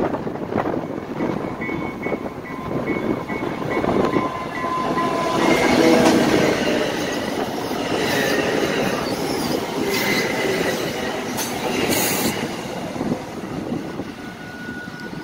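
Diesel-hauled commuter train of Bombardier bilevel coaches passing close at speed, a continuous rumble of locomotive and rolling stock that is loudest around the middle. The wheels click over rail joints, and a thin wheel squeal comes near the end.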